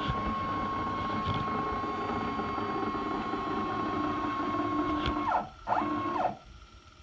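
CNC router's stepper-driven axis moving at a steady rapid, giving a held whine. About five seconds in it ramps down in pitch and stops, then makes a short second move, ramping up and back down before it stops.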